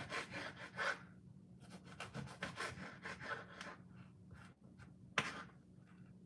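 Kitchen knife cutting eggplant into pieces on a wooden cutting board: quick runs of strokes through the flesh onto the board, with one sharper knock a little after five seconds.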